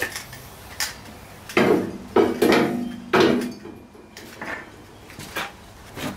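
Metal clanking and knocking as a pedal box assembly is set onto a welded tube buggy frame: a string of knocks, the loudest few in the middle, some with a brief metallic ring.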